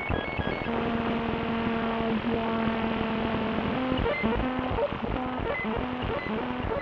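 Electronic synthesizer music: a dense, crackly textured bed under a held low synth note and its octave, which about four seconds in breaks into a repeating pattern of short bleeps, with scattered high blips. Right at the start the bright noise hits stop and the sound turns duller.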